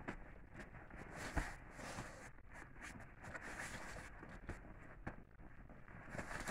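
Faint rustling and scattered knocks as a puppy is played with using a knotted rope toy, with one sharper knock about a second and a half in.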